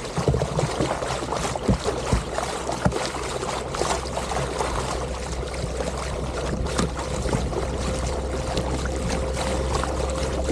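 Lake water splashing and trickling against a moving kayak, with many small splashes over a steady low hum. A faint steady whine comes in clearer about halfway through.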